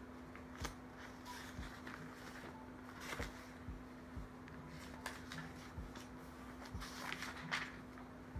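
Pages of a Bible being leafed through by hand: irregular soft paper rustles and light ticks while looking for a verse, over a faint steady hum.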